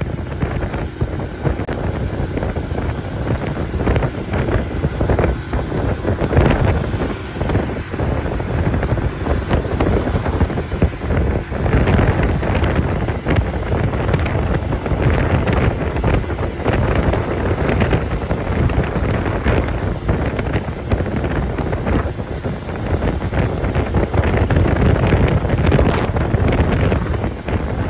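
Wind buffeting the microphone of a 50cc moped riding along at road speed, in uneven gusts, with the scooter's running and road noise underneath.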